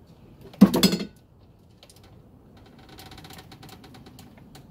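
A gearbox on a trolley jack being let down. About half a second in there is one loud, short creak. From about two and a half seconds on there is a run of small, irregular clicks and creaks as the box settles lower.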